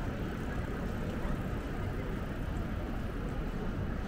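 Steady low rumble of street traffic: the general hum of a busy city street, with no single sound standing out.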